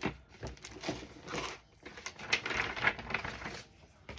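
Paper rustling and crinkling in bursts as an envelope is handled and its contents pulled out, with short pauses between.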